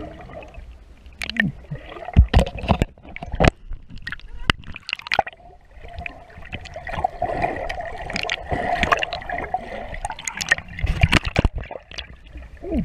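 Sea water splashing and gurgling around a waterproof camera as it moves at and under the surface beside a paddling dog. It is full of irregular sharp splashes and knocks, with a steady muffled hum for several seconds in the middle.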